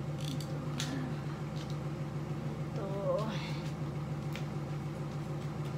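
Jumper cable clamps clicking and knocking as they are handled and clamped on in a car's engine bay, over a steady low hum. A brief wavering vocal sound comes about three seconds in.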